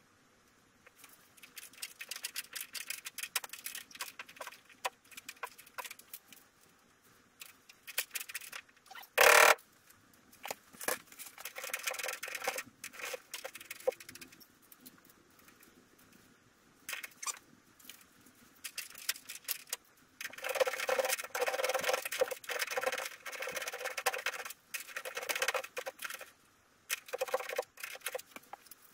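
Hand tools being worked on the underside of a car: irregular bursts of rapid clicking and rattling, with one loud sharp knock about nine seconds in and a longer run of dense clicking from about twenty seconds in.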